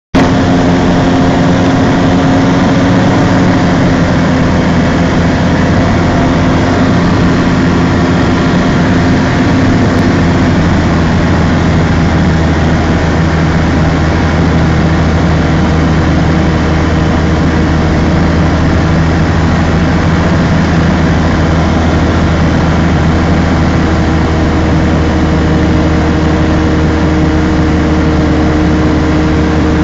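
Single-engine light aircraft's piston engine and propeller heard from inside the cabin: a loud, steady drone over rushing air noise, its pitch shifting slightly a few seconds in and again about ten seconds in, on approach to land.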